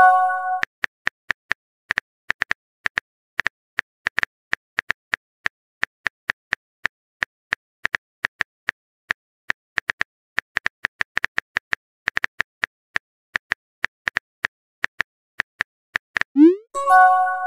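Simulated phone-keyboard typing clicks, irregular short taps a few per second, as a chat message is typed out. A bright chime sounds at the very start, and near the end a short rising swoop and chime mark the message being sent.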